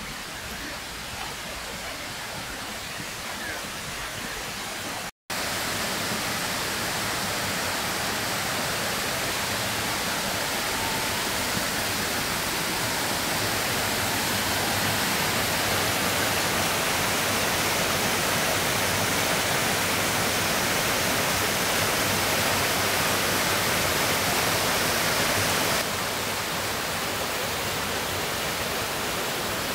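Creek water cascading over boulders, a steady rushing hiss. It starts abruptly after a moment of silence about five seconds in and drops slightly near the end.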